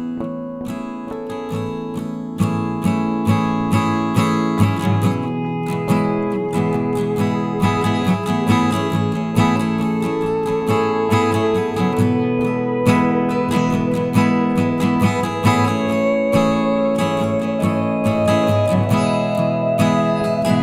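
Background music of strummed acoustic guitar with a steady rhythm.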